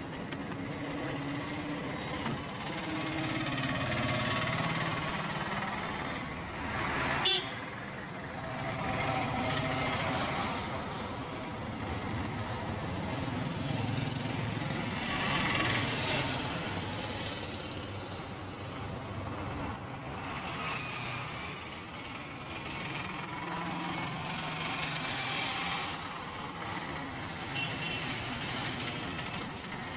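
Busy street traffic: vehicles running, with horns honking now and then. A single sharp click about seven seconds in.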